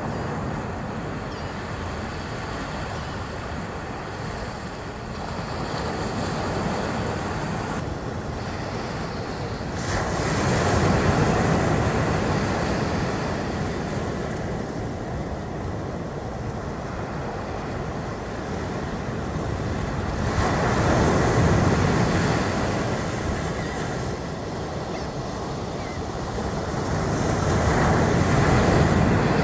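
Ocean surf breaking on a sandy beach: a continuous wash that swells and eases three times as waves come in.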